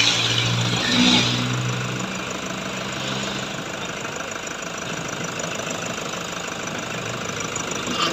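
Toyota HiAce engine idling while the power steering pump whines loudly for about the first second as the wheel is turned to full lock, then settles into a steady idle; the freshly filled power steering system is being bled of air. Two short clicks near the end.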